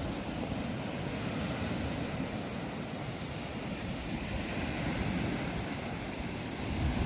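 Strong wind buffeting the microphone, with lake waves washing in steadily underneath.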